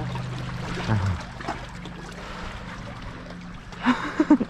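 Reservoir water lapping and trickling against shoreline boulders, under a steady low hum. A brief voice sounds near the end.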